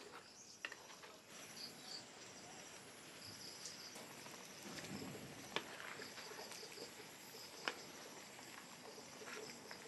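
Faint outdoor ambience with short high-pitched chirps repeating in small groups, and two sharp clicks about two seconds apart midway through.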